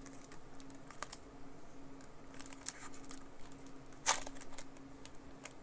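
Foil Pokémon booster-pack wrapper being torn open by hand: scattered small crinkles and clicks, with one louder tear about four seconds in.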